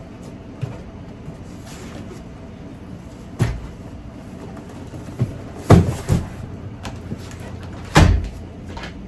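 A few knocks and thumps, the loudest pair about six and eight seconds in, over a steady low hum.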